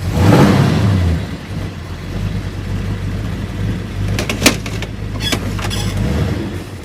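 1965 Ford Galaxie engine running as the car is driven. A loud surge of engine noise in the first second settles to a steady low drone, with a few sharp clicks about four to five seconds in. The engine has a running problem that the driver suspects is in the carburetor.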